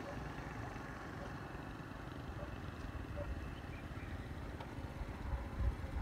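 Outdoor field ambience: a low, uneven rumble with a faint thin tone through the middle seconds, swelling near the end.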